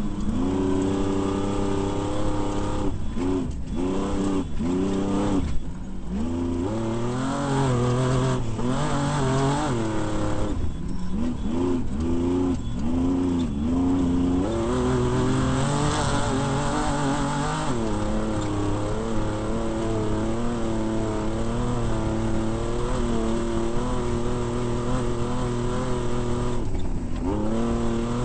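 Off-road desert race vehicle's engine running hard, its pitch climbing and falling again and again, with several brief throttle lifts, over a steady rushing noise.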